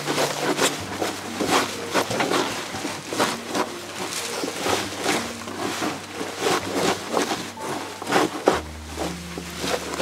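Gloved hands rubbing and squeezing salt into bunches of Aso takana (mustard greens) on a wooden board, salting them for pickling. Rhythmic rustling strokes of leaves and stalks, about two or three a second.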